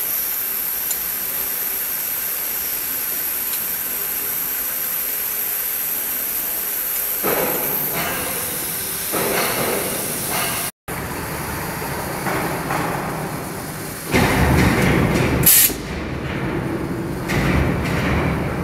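Pot lid polishing machine running, its electric motors giving a steady hiss. From about seven seconds in come repeated bursts of grinding as the spinning metal lid is worked against the abrasive belt. The loudest burst lasts about a second and a half near the end and closes with a brief shrill sound.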